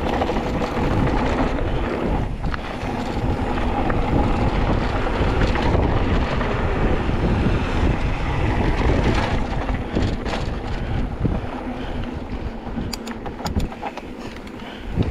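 Wind buffeting the microphone, a steady low rumble with a rushing hiss, easing somewhat near the end.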